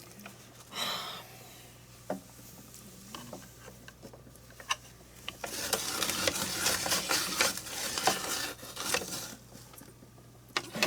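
Cucumbers being cut in a KitchenAid slicer: scattered clicks and scrapes, then a dense run of scraping and clicking from about halfway through that dies down near the end, over a low steady hum.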